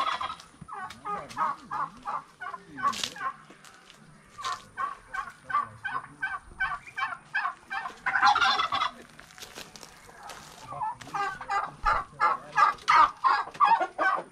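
Domestic fowl calling: rapid, evenly repeated calls, about three a second, in three long bouts.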